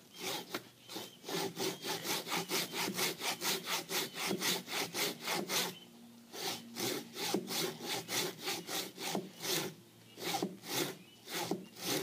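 Hand saw cutting into a palm tree trunk with quick, even strokes, about four a second, breaking off briefly near the middle and then carrying on.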